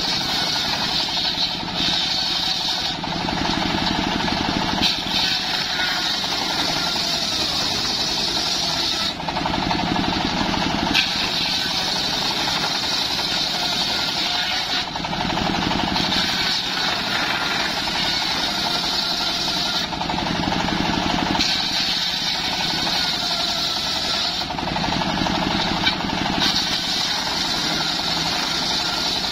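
Homemade table circular saw ripping old mahogany lengthwise, the blade running continuously under load. Its tone changes every few seconds as the timber is pushed through the cut.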